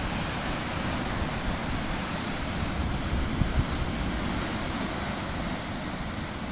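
Rough Atlantic surf washing and churning against a rocky shore: a steady rush of water, with wind buffeting the microphone in uneven low rumbles.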